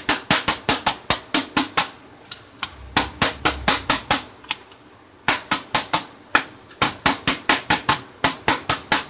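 A Dell laptop keyboard, held upside down by its metal backplate, being struck hard and fast over and over. The sharp rattling knocks come at about five a second in four runs with short pauses between them. This is the repairer's trick of knocking dust out of the keyboard to revive keys that have stopped working.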